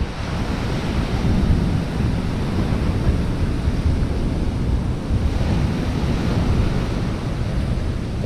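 Strong wind buffeting the microphone over rough surf breaking on a shingle beach: a steady rushing noise, with the surf swelling slightly about five seconds in.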